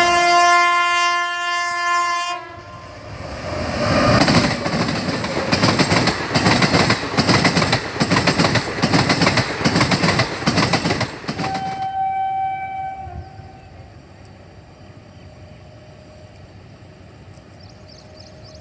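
Indian Railways train horn sounding for about two seconds, then a train passing close with loud, rapid clickety-clack of wheels over rail joints for about nine seconds. Near the end a short, fainter horn blast is followed by a quieter steady rumble.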